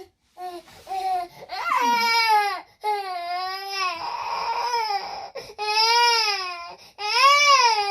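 A small child crying: a string of high-pitched wails of a second or so each, rising and falling in pitch, broken by short catches of breath.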